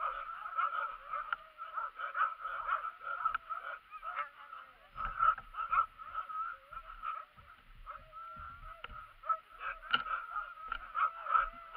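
Harnessed sled dogs whining and yipping in high, wavering cries without pause, impatient to run.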